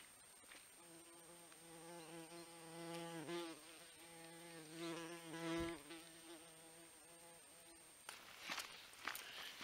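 A flying insect, fly or bee, buzzing close by with a steady hum for several seconds, its pitch dipping briefly twice as it moves about. Near the end, a few faint clicks and rustles.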